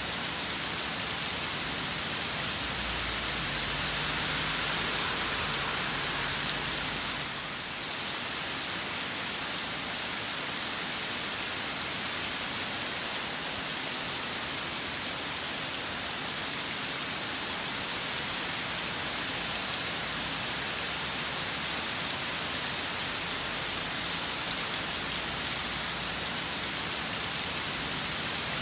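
Steady rain falling in a storm: an even, continuous hiss of rain on surfaces.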